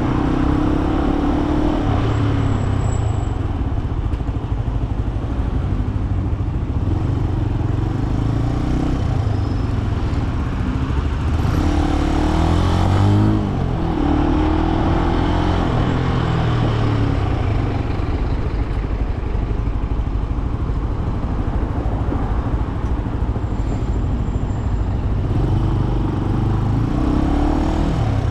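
Benelli BN125's single-cylinder four-stroke engine under way. Its note rises and falls several times with throttle and gear changes, over a steady road noise.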